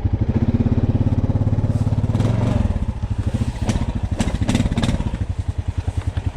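Honda Rubicon ATV's single-cylinder engine chugging at low revs as it creeps through a flooded mud hole in two-wheel drive. The revs pick up briefly at the start and drop back about halfway, with a few sharp knocks after that.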